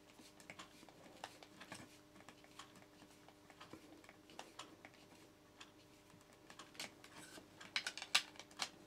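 Small, faint clicks and ticks of a screwdriver turning a terminal screw on a double electrical socket, tightening down the live wire. The clicks come sparsely at first, then in a quicker, louder cluster near the end.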